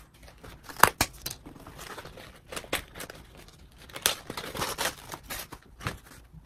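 Handling noise of a plush Christmas stocking being turned over, opened and smoothed flat on a heat-press mat: irregular rustling and rubbing with scattered sharp clicks, the loudest just under a second in.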